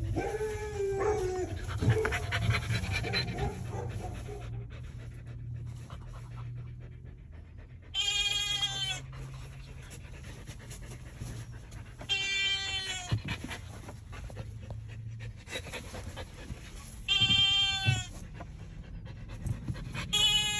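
A dog whining in a wavering voice for the first few seconds. Then four separate bleat-like calls, each about a second long with a clear, even pitch, come a few seconds apart over a steady low car-cabin hum.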